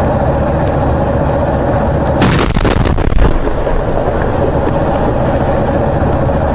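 An explosion: a sudden blast about two seconds in that rumbles for about a second, over a loud, steady rumble with a constant hum.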